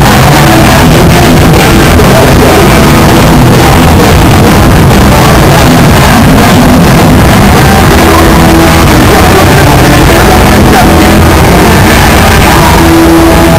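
Hardcore punk band playing live and very loud: distorted guitars, bass and drums in a dense, unbroken wall of sound.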